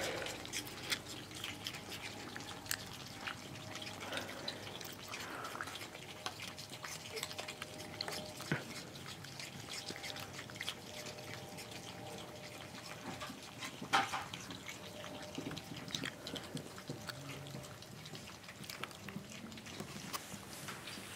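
Several young Virginia opossums chewing kibble and soft food: an irregular run of small wet crunches and clicks, with one louder click about two-thirds of the way through.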